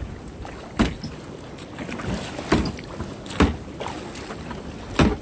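Water splashing and knocking against an ocean kayak in surf: four sharp splashes a second or two apart, the last the loudest, over wind noise on the microphone.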